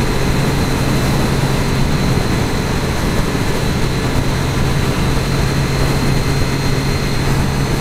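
A 2013 Triumph Daytona 675R's three-cylinder engine running steadily while the motorcycle cruises, under an even rush of wind noise.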